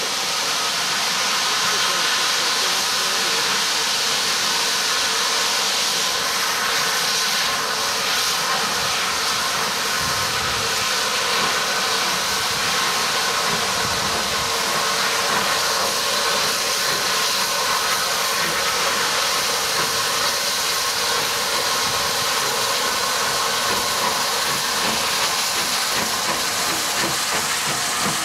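Standing steam locomotive letting off steam: a loud, steady hiss.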